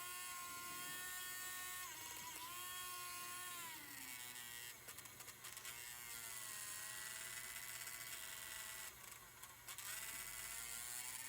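K-Line backhoe accessory's small DC motor and worm-gear gearbox running, a faint steady electric whine with its armature bearing freshly oiled. The pitch sags and recovers several times as the digging arm cycles, with a slight drag on the upstroke.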